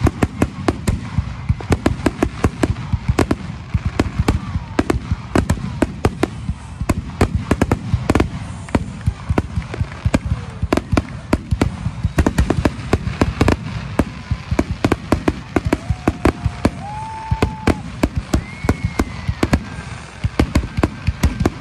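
Aerial fireworks display going off: a dense, unbroken run of bangs and crackles, several a second. A few short whistled tones rise above them near the end.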